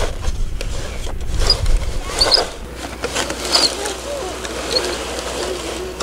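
A toy bulldozer's blade is pushed through beach sand, scraping and crunching, over wind rumble on the microphone. In the second half a child's wordless voice rises and falls, humming or making vehicle noises.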